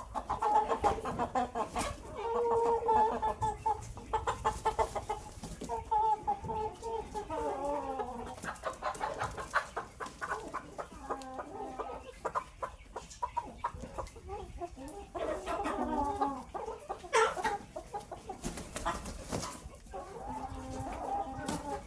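A flock of chickens clucking and calling, many birds at once, their calls overlapping continuously.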